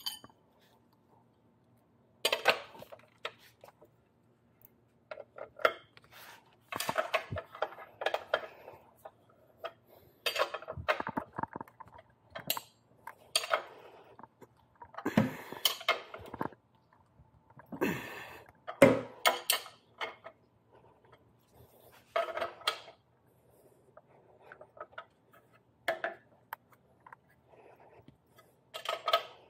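Irregular metallic clinks, knocks and clatters of hand tools and steel scooter hardware (wrench, axle, washers) being handled while a scooter's rear wheel is refitted into its swingarm. Some of the strikes ring briefly.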